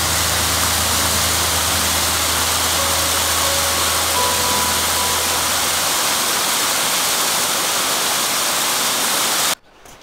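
River rapids, water rushing over rocks, a loud steady hiss that cuts off abruptly near the end.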